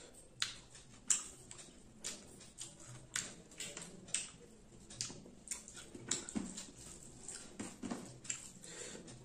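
Close-miked wet eating sounds: a person chewing a mouthful of rice and fish, with lip smacks about twice a second.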